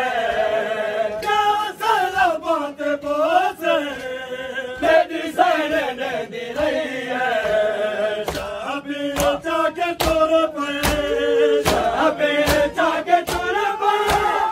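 Men's voices chanting a Saraiki noha, a Muharram mourning lament, with a melodic line that rises and falls. From about halfway through, sharp slaps of matam chest-beating keep the beat about twice a second.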